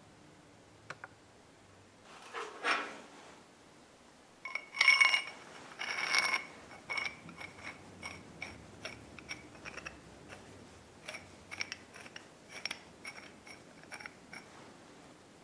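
Steel bottle-jack parts being handled: a scrape a few seconds in, then two ringing metal clinks about a second apart, followed by a run of light clicks and taps as the threaded steel lifting screw is handled.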